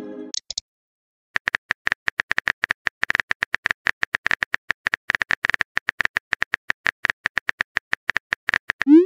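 Smartphone keyboard typing clicks in a fast, uneven run, starting about a second and a half in. The tail of a message chime fades at the start, and a rising message-sent chime begins at the very end.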